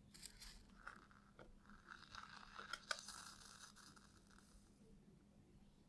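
Faint crackling and small clicks of a wire being soldered onto a circuit board, with a soft hiss from about a second and a half to four seconds in and one sharper click near the middle.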